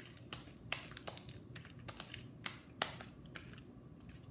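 Sticky homemade slime being kneaded and pulled apart between the hands, giving a run of irregular sharp wet clicks and pops, several a second.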